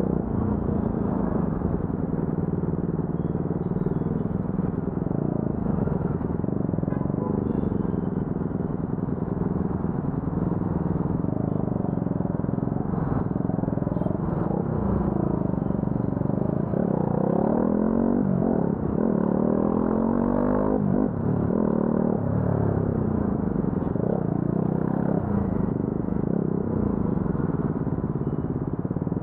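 Motorcycle engine running in stop-and-go traffic, its pitch rising and falling as it is throttled up and eased off through the gears, with several rising pulls past the middle. Other traffic rumbles around it.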